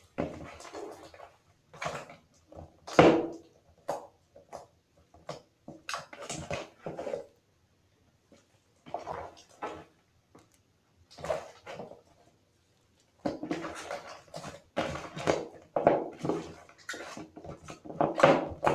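Wet, watered-down slime being squeezed and stretched by hand, squelching and popping in irregular bursts with short silent gaps between them.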